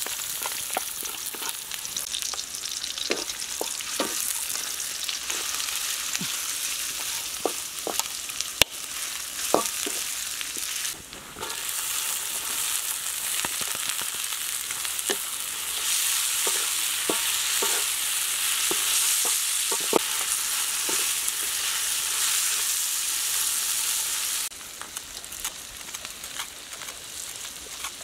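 Minced garlic, then salted soy beans and ginger, sizzling in hot oil in a steel wok, with the stirring utensil clicking and scraping against the pan. The sizzle grows louder partway through and drops to a quieter level near the end.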